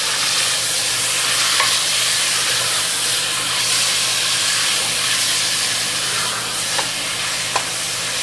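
Chunks of chicken breast sizzling steadily in hot vegetable oil in a metal pot over high heat while being stirred with a wooden spoon, with a few faint clicks as it is stirred.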